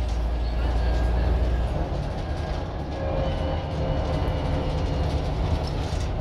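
Scania N94UD OmniDekka double-decker bus under way, heard from the upper deck: steady diesel engine drone with road noise. The deepest part of the drone eases about two seconds in, and a faint whine rises slightly in pitch later on.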